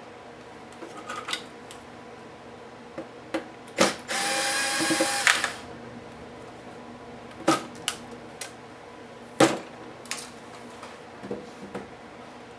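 A small electric motor whirs steadily for about a second and a half, a little before the middle. Sharp clicks and knocks of laptop parts and tools being handled come before and after it.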